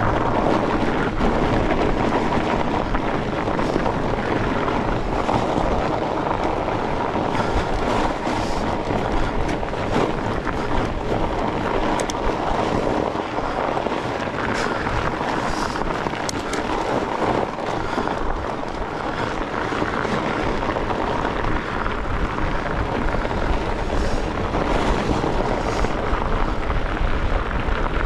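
Steady wind buffeting and rumble on the camera microphone while riding a fat bike, with tyre and drivetrain noise and scattered clicks and rattles from the bike.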